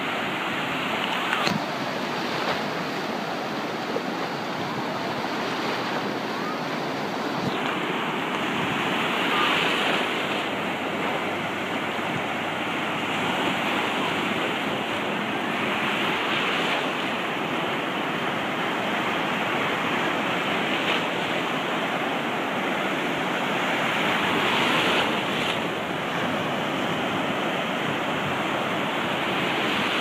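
Sea surf breaking on a beach: a continuous rushing wash of waves, with louder crashes swelling up every several seconds.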